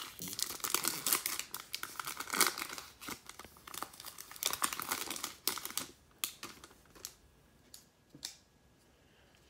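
Plastic-foil wrapper of a baseball card pack crinkling and tearing as it is ripped open by hand, crackling for about six seconds. It then gives way to a few faint taps as the stack of cards is squared up.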